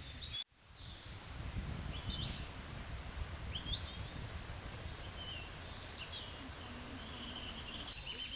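Outdoor ambience: several birds chirping and whistling in short calls over a steady low rumbling background. It begins with a brief cut to silence about half a second in.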